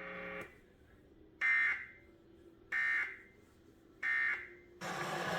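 Three short bursts of Emergency Alert System end-of-message digital data tones, each about half a second long and a little over a second apart, signalling that the alert is over. A low hum cuts off just before them, and a steadier noisy sound comes in near the end.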